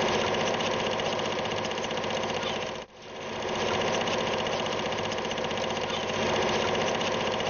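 Film projector running: a fast, steady mechanical clatter over a hum. It cuts out briefly about three seconds in, then builds back up.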